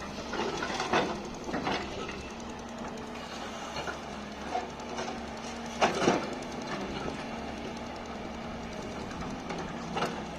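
Excavator's diesel engine running steadily, with a few separate clanks and scrapes of metal against rock or ground, loudest about six seconds in. No rapid hammering of the breaker is heard.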